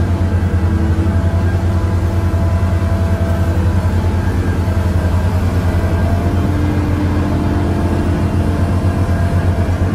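Komatsu PC1250 excavator's large diesel engine running steadily under load while the bucket digs, heard from inside the cab as a deep, pulsing drone, with faint higher tones coming and going.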